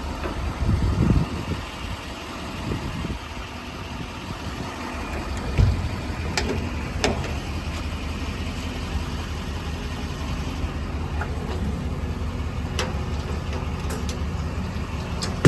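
6.6-litre Duramax V8 diesel idling steadily. A few sharp clicks and knocks sound over it, with a couple of low thumps early on.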